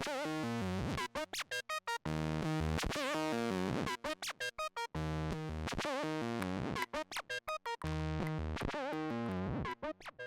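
Electronic synthesizer music with keyboard-like notes, a short phrase repeating about every two seconds with choppy stop-start notes in its second half.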